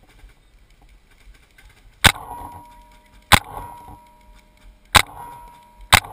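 Paintball marker firing four single shots, each a sharp crack followed by a brief metallic ring, spaced about one to one and a half seconds apart.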